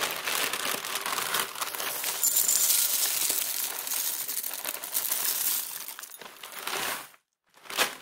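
Cornflakes poured into a bowl: a dense, crackling rattle of flakes that starts abruptly, thins out and stops after about seven seconds, followed by one short final trickle near the end.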